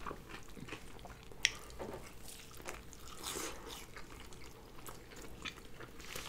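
Wet chewing and lip-smacking of a mouthful of double cheeseburger, a run of small wet clicks with one sharper click about a second and a half in.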